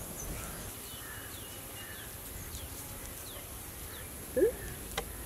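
Small birds chirping outdoors: many short, faint, high chirps that fall in pitch. About four seconds in comes a single short rising call, louder than the rest, and a sharp click follows just before the end.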